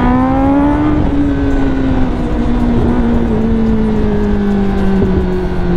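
Kawasaki ZX-10R's inline-four engine through an SC Project long-can exhaust, accelerating under throttle: its note climbs for about a second, then eases slowly down.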